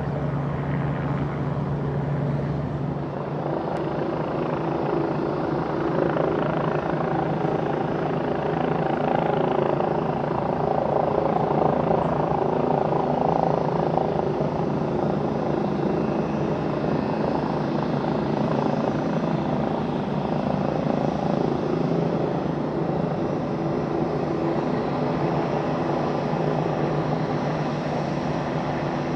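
Jet engines of a taxiing Boeing 787-9 running steadily at low power: a low hum with several steady tones, swelling a little in the middle.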